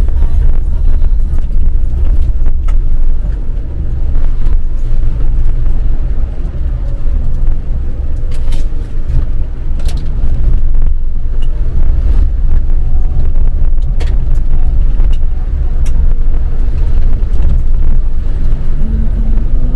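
Mahindra Thar driving along a wet, rutted dirt track, heard from inside the cabin: a steady heavy low rumble of engine and tyres, with scattered sharp clicks and knocks over it.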